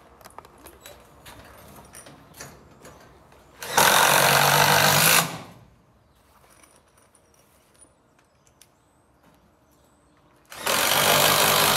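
Cordless power driver running twice, each time for about a second and a half, first about four seconds in and again near the end. It is driving fasteners into garage door hardware. Faint clicks of handling between the runs.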